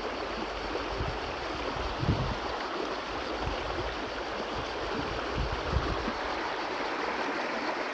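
River water running over rocks: a steady, even rush, with a few soft low thumps about two seconds in and again past the middle.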